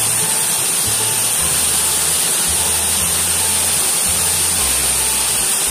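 Waterfall pouring into a rock pool, a steady rushing noise, with background music whose low bass notes change about once a second.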